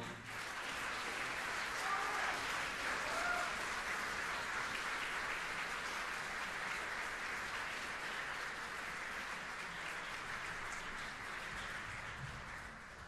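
Theatre audience applauding steadily after a ballet solo, the clapping fading out near the end.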